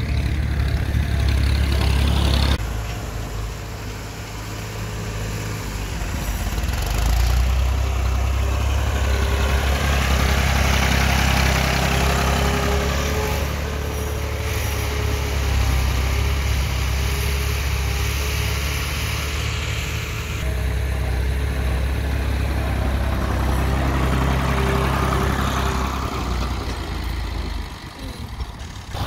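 Massey Ferguson 240 tractor's diesel engine running steadily under load while its rear blade levels loose soil. The sound changes abruptly twice, about two and a half seconds in and again about twenty seconds in.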